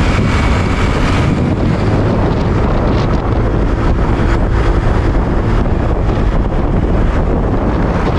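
Heavy wind buffeting on the microphone at riding speed on a Yamaha NMAX 155 scooter, with the scooter's engine running steadily underneath.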